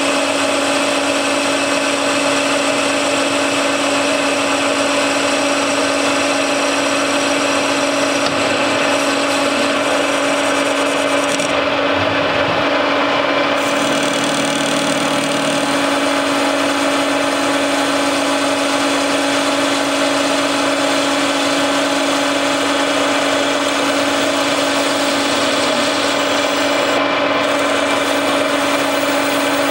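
Metal lathe running steadily, with a constant machine hum and whine, while its cutting tool turns a metal bearing cap.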